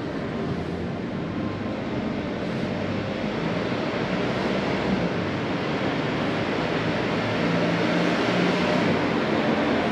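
Steady rumbling noise of a vehicle going by, growing slowly louder.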